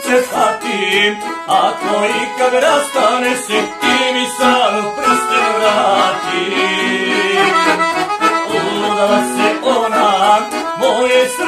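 Olympus piano accordion playing a folk song, with a man singing along at times.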